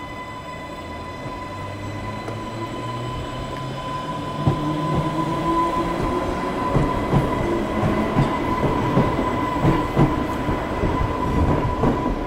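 Class 484 electric train pulling away, its traction motor whine rising in pitch as it gathers speed and grows louder. From about four seconds in, its wheels click over rail joints.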